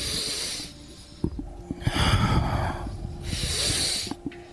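Paced exercise breathing during a slow twisting stretch: three loud, airy breaths, each half a second to a second long, about a second and a half apart.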